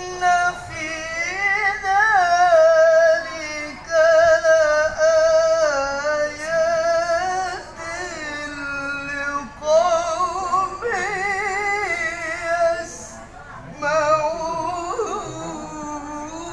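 A solo voice in melodic Quran recitation (tilawah): long, ornamented phrases held on wavering notes, with short breaks for breath between them.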